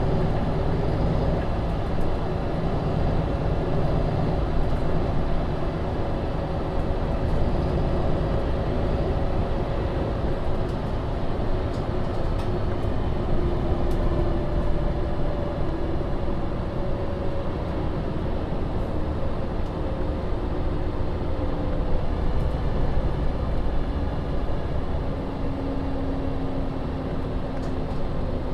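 MAN Lion's City NL 283 city bus under way: steady low engine and road rumble, with a drive tone that slowly drifts in pitch as the bus's speed changes.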